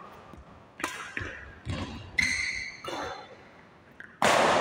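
Badminton rally: sharp racket hits on the shuttlecock every half second or so, a shoe squeaking on the court floor about two seconds in, and a loud hit near the end.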